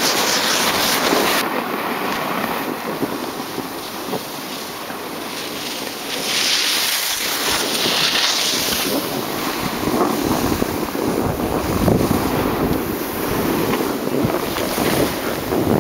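Wind buffeting the microphone, together with the steady hiss and scrape of a rider sliding over packed piste snow. The hiss grows louder and sharper from about six to nine seconds in, then eases back.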